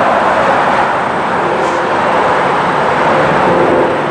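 Steady rush of heavy highway traffic, with cars and trucks passing close by and a faint engine drone about halfway through.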